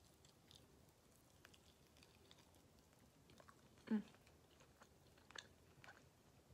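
Faint chewing: soft scattered mouth clicks and smacks of a person eating with her mouth closed, with a short throaty hum about four seconds in.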